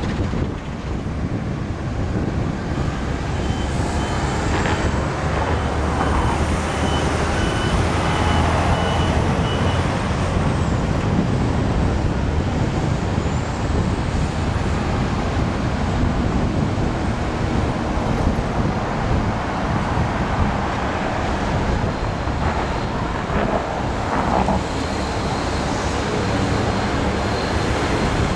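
Steam locomotive CT273, a Kawasaki-built C57-type 4-6-2, working a passenger train past with a steady running noise. It is mixed with road traffic from a highway beside the line.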